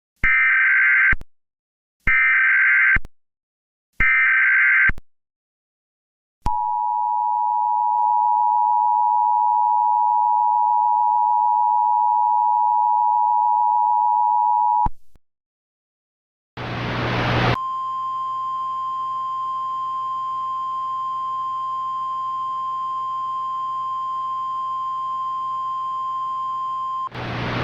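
Mock Emergency Alert System tones: three one-second bursts of the screeching digital SAME header, then the two-tone EAS attention signal held for about eight seconds. After a short pause, a single steady alert tone plays over a background of hiss and hum for about ten seconds.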